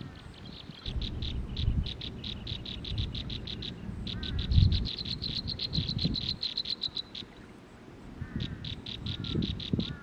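Nestlings begging while a parent feeds them: rapid runs of thin, high chirps, several a second, in three spells, the middle one the densest. Low rustling and soft knocks sound underneath.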